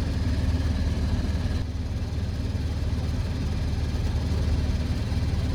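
Goodman gas furnace's blower fan running with a steady low hum while the burners stay off: the furnace is locked out on an open flame rollout limit switch, signalled by six red flashes.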